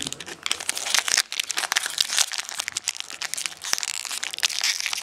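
Foil wrapper of a 2011 Topps football card pack crinkling as it is handled and torn open: a dense run of crackles.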